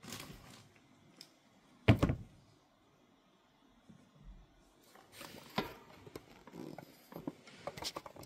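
Toy figures on plastic display bases being handled and set down on a table: a brief rustle, one sharp knock about two seconds in, then a run of lighter taps and clicks in the second half.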